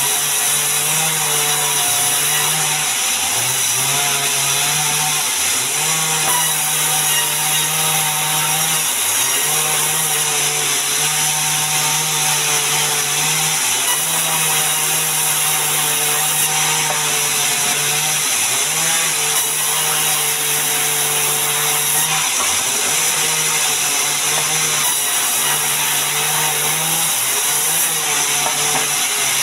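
Large sawmill band saw ripping mahogany boards, with a steady hiss of the blade cutting through the wood over a low motor hum. The hum dips briefly in pitch and recovers several times as the wood is pushed through.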